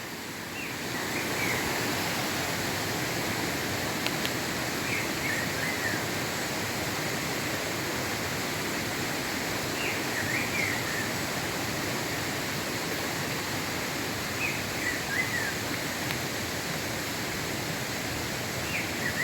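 Bico-de-pimenta (black-throated grosbeak) singing short phrases of a few falling whistled notes, five times at roughly four-to-five-second intervals, over a steady rush of flowing water.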